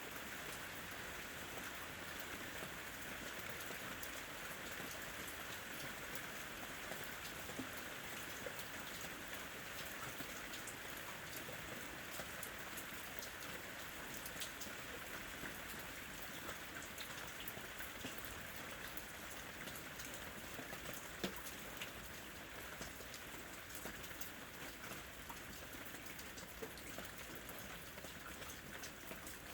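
Steady rain falling, a continuous hiss scattered with the small ticks of individual drops hitting surfaces.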